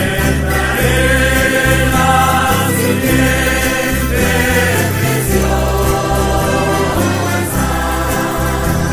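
Christian rock music with singing over a moving bass line.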